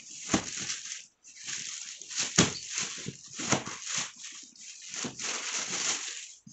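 Thin plastic bag rustling and crinkling as it is pulled off a cardboard box, in several long bursts, with a few low knocks from the box being handled on a tiled floor.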